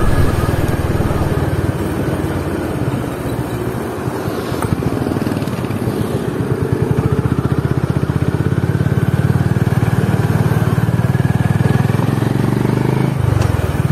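Honda H'ness CB350's single-cylinder engine and exhaust running as the motorcycle is ridden: a low, even exhaust beat that grows stronger from about six seconds in and eases shortly before the end.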